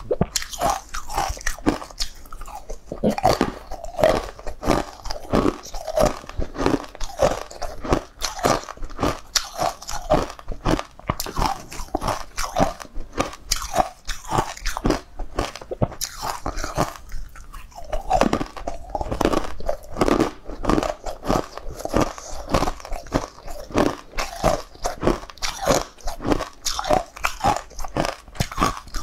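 Close-miked biting and crunching of frozen green ice blocks, with chewing between bites: a continuous run of crisp crunches, several a second.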